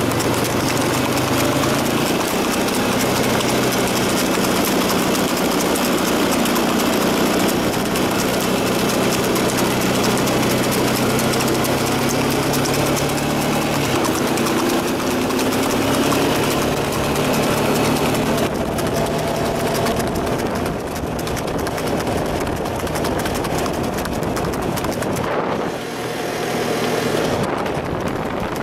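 A motor vehicle's engine running at a steady road speed, with road and wind noise. The engine hum shifts in pitch about halfway through and turns a little quieter and patchier near the end.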